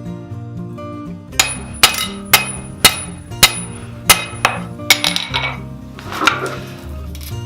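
About nine sharp hammer blows on metal, roughly two a second, each ringing briefly, over background music.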